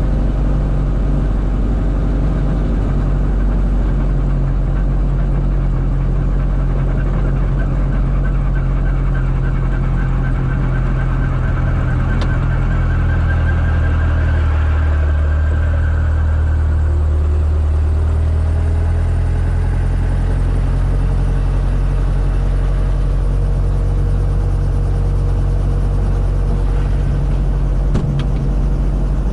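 Robinson R22 Beta II helicopter's four-cylinder Lycoming piston engine running steadily just after start-up, heard through the headset intercom. A higher tone rises in pitch about halfway through.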